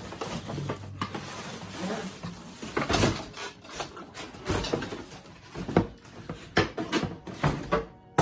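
Unpacking sounds: packaging rustling, then a string of sharp knocks and bumps as the boxed coffee machine and its packaging are handled.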